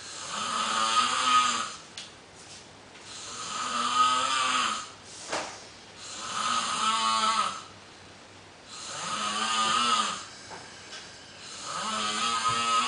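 Loud, steady snoring from someone asleep: five long, buzzy snores, each about two seconds, in a regular rhythm of about one every three seconds.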